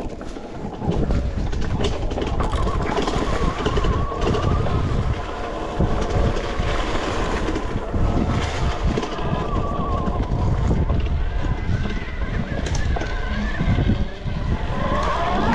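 Wind buffeting the microphone while riding an Arctic Leopard electric bike off road, with the electric motor's whine rising and falling with speed and climbing in pitch near the end.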